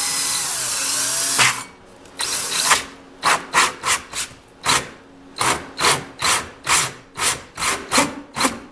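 Power drill turning a 4 1/8-inch hole saw into a white plastic board to cut a shallow recess without going through. It runs steadily for about a second and a half, stops, then from about three seconds in runs in many short bursts, about three a second.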